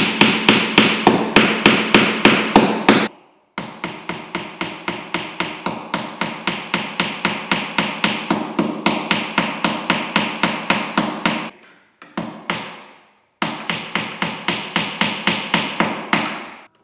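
Hammer tapping fast and evenly on the canoe's wooden gunwale, about five blows a second. The taps come in runs broken by short pauses, about three seconds in and again near the end, and the first run is the loudest.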